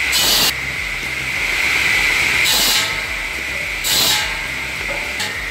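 Large tractor-driven circular saw blade spinning with a steady hissing whine over the tractor engine's low drone, biting into logs in three short, louder bursts: at the start, about two and a half seconds in, and about four seconds in.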